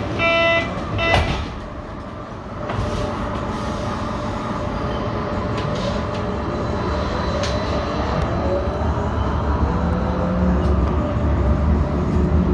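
The last door-warning beeps of a Berlin HK06 U-Bahn train, then a knock as the doors shut about a second in. The train pulls away: its traction motors start with a whine rising in pitch over a growing rumble, a motor sound called strange ("komisch").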